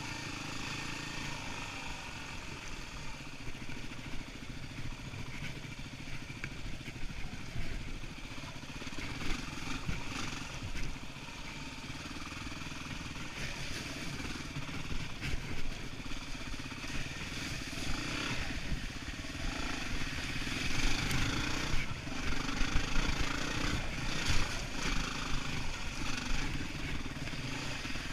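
Yamaha WR250R's single-cylinder four-stroke engine running as the dual-sport bike rides a dirt trail, with sharp knocks and rattles from jolting over the rough ground, more and louder in the second half.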